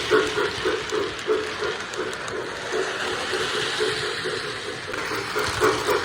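The sound system of an O gauge TMCC model of a Union Pacific 2-8-0 Consolidation steam locomotive playing steam chuffs at a steady beat, about three a second, over a hiss and the rolling of the train on the track. The chuffing grows louder near the end.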